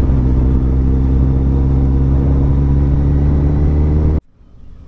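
Kawasaki ZZR1400 motorcycle's inline-four engine running at a steady speed, then cutting off suddenly about four seconds in.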